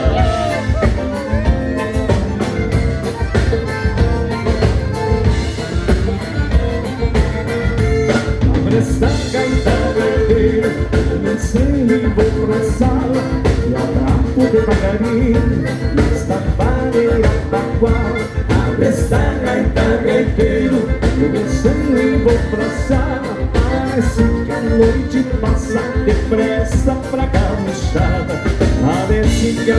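Live gaúcho dance band playing a vanerão (vanera), with a steady, driving beat.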